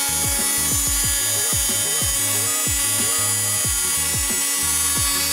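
A small handheld electric rotary sander with a sanding disc runs steadily, held against a 3D-printed plastic model part, over background music with deep falling bass notes.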